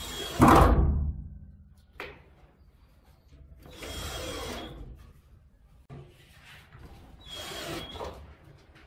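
Cordless drill driving screws into the wooden bed frame in three short runs of about a second each, the first the loudest, with a single sharp click about two seconds in.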